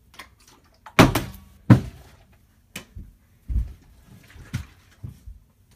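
Partly filled plastic soda bottle flipped and landing on a tile floor: a loud thunk about a second in, a second thunk a moment later as it bounces, then a few softer knocks as it tips and rolls.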